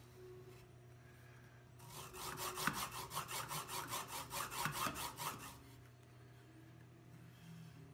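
A 3D-printed slider's bearings running along steel guide rods as the slider is pushed back and forth by hand. They make a quiet, dry rasping in quick, even pulses that starts about two seconds in and stops a couple of seconds before the end.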